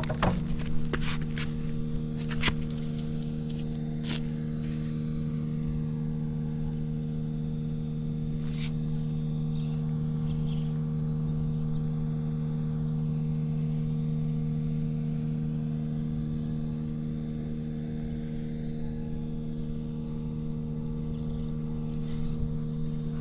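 Suzuki Volty's single-cylinder engine idling steadily and quietly, with no abnormal noises. A few sharp clicks come in the first few seconds and one more about eight seconds in.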